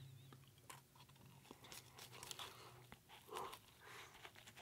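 Quiet, close-miked biting and chewing of a pan-fried curry burrito in a tortilla wrap: scattered crisp crunches and small wet mouth clicks.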